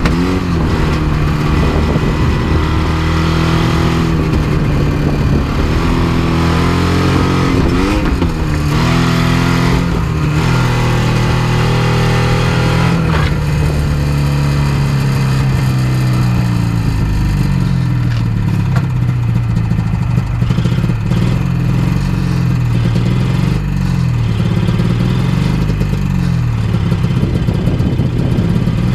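Vintage snowmobile's two-stroke engine running, revved up and down in surges during the first half as it is driven up onto a trailer. It then runs on at a lower, wavering pitch.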